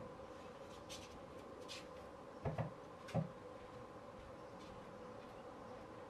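A wood pigeon's beak knocking three times on a wooden bird table as it pecks seed, two quick knocks then a third, over a faint steady hum.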